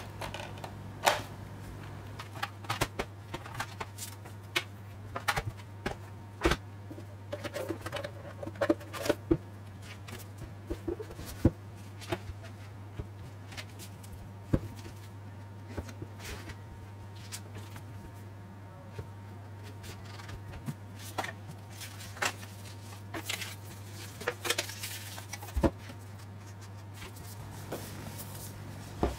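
Gloved hands handling Blu-ray discs, a plastic disc tray and a cardboard box: scattered clicks, taps and light rustles, over a steady low hum.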